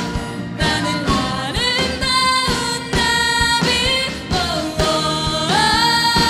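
Two young singers singing a pop-rock melody through microphones over a Korean traditional orchestra of gayageum zithers and daegeum bamboo flutes, with a steady drum beat. About five and a half seconds in, the vocal line slides up to a long held note.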